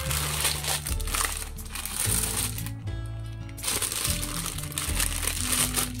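Thin clear plastic bag crinkling as a silicone pop-it fidget toy is unwrapped and pulled out of it, pausing briefly about three seconds in. Background music plays throughout.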